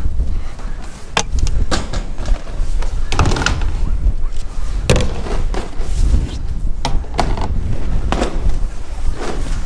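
Plastic drainpipe and gutter pieces knocking and scraping against the steel cage of an IBC water tank and the sheet-metal shed wall, a string of irregular sharp knocks, over a steady rumble of wind on the microphone.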